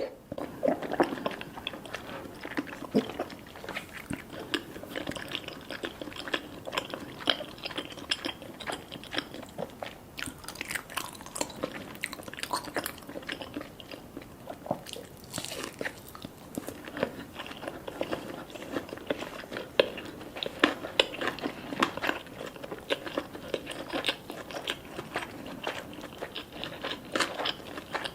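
Close-miked eating: a person biting and chewing food, with many small irregular crunches and crackles throughout.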